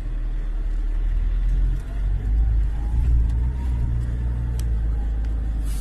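Steady low rumble of engine and road noise heard from inside a moving car driving close behind a tractor-trailer, swelling louder for about a second a couple of seconds in.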